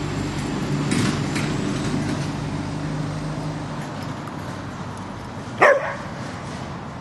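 A dog gives a single short, sharp bark about five and a half seconds in, sweeping up in pitch. Under it, a steady vehicle engine hum fades away.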